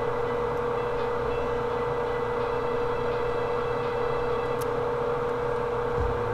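Steady mechanical hum with a constant mid-pitched tone over an even whir, with a faint tick about four and a half seconds in.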